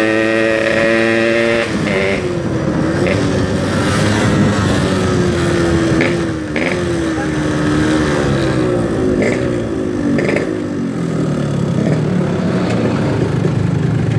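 Yamaha RX-King two-stroke single-cylinder motorcycle engine running under way, with wind rushing past the helmet microphone. Its pitch holds steady at first, then rises and falls with the throttle, and drops lower near the end as the bike slows to pull in.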